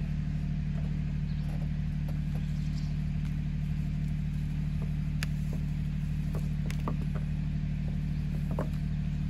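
Mahindra 1626 compact tractor's diesel engine idling steadily, with a few faint clicks and rustles of rope being handled over it.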